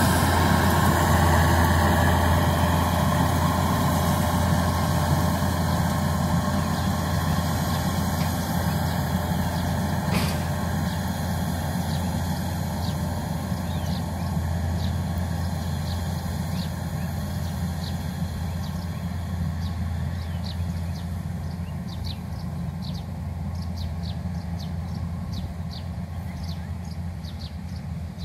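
Kubota DC-93 combine harvester running steadily as it cuts rice, a deep engine hum that slowly fades over the stretch.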